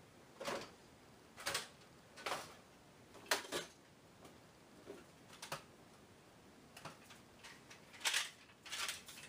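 Light, irregular knocks and clacks of hard plastic toy blasters being handled on a wall rack, about eight in all.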